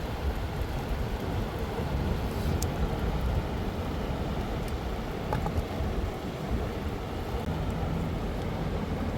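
Steady low rushing of river water with wind buffeting the microphone, and a few faint sharp clicks.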